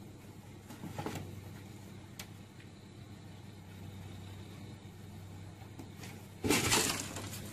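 A cat leaping from a car roof to a deck ledge: a faint low hum, then about six and a half seconds in a sudden loud scuffling noise, lasting about a second, as it lands and scrambles on the snowy ledge.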